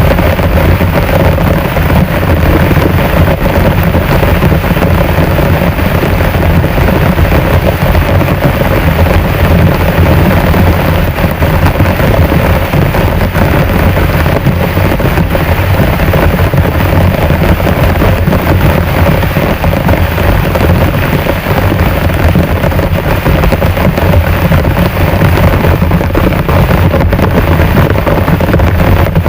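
Heavy rain pouring down, a loud, dense, unbroken hiss and patter with a heavy low rumble underneath.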